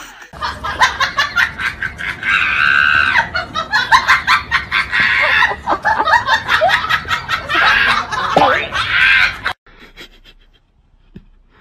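People laughing hard in rapid bursts of loud laughter, which cut off abruptly about nine and a half seconds in.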